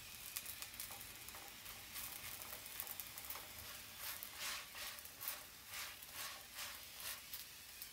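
Thin chapati batter frying faintly in a non-stick pan, with a metal spoon scraping against the pan. About four seconds in, the spoon makes a run of short strokes, about two a second.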